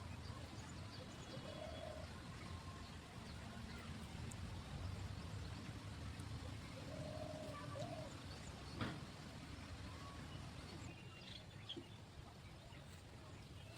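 Faint outdoor background noise, with a distant call heard twice, once early and again about seven seconds in. A single short knock comes near the ninth second.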